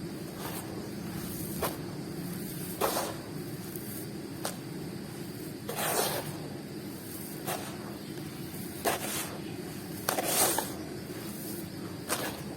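Crunchy crumbly balls and squares being crushed and crumbled by hand: sharp single crunches every second or so, with two longer, louder crumbling crunches about six and ten seconds in. A steady low hum runs underneath.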